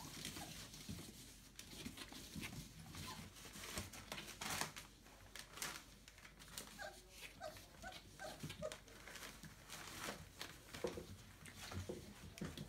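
Young Entlebucher Mountain Dog puppies, about four weeks old, giving short high squeaks and whimpers: a run of them about halfway through and a few more near the end, amid faint rustling and shuffling.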